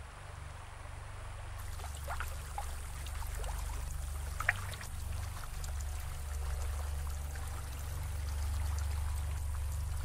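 Water of a shallow rocky stream flowing and trickling, with a few small splashes, over a steady low rumble.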